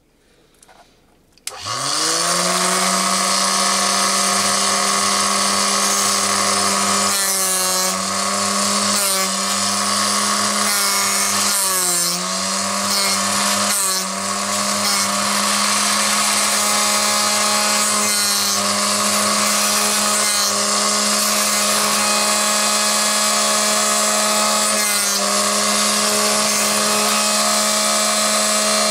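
Proxxon BSG 220 drill sharpener's motor switching on about one and a half seconds in and spinning up within a second, then running steadily while a twist drill is ground against the wheel with side-to-side strokes. The motor's pitch dips briefly a few times as the drill bears on the wheel.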